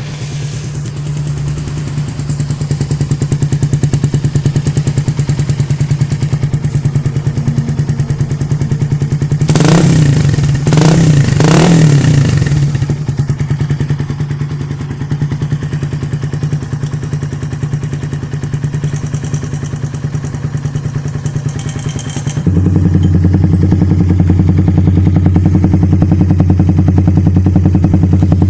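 Suzuki Raider 150 single-cylinder four-stroke engine idling through an HGM gunmetal aftermarket exhaust, blipped three times in quick succession about ten seconds in. About 22 seconds in the idle turns suddenly louder and deeper and stays so.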